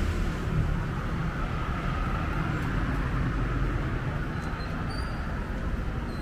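Street traffic noise: a steady rumble of passing vehicles. Faint short high chirps come in during the second half.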